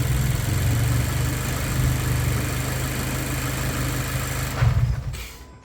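Mazda 2 Skyactiv engine idling steadily on worn engine mounts, with a brief thump near the end before the sound dies away.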